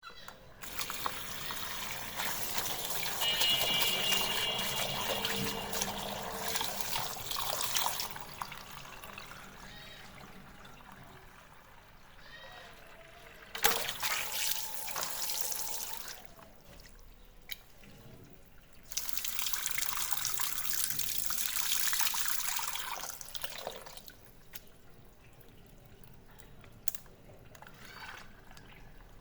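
Water balloons bursting and their water splashing out, in three long spells of splashing with quieter trickling between; the middle spell opens with a sharp pop.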